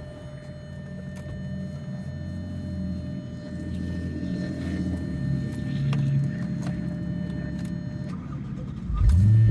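Audi RS4's 4.2-litre V8 with an aftermarket JHM exhaust running, growing steadily louder, then suddenly much louder about nine seconds in.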